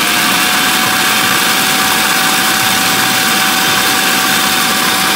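Food processor motor running steadily while it churns a wet tomato, onion and hot pepper paste. It makes a loud whirring noise with a steady whine that climbs slightly at the start as the speed is turned up.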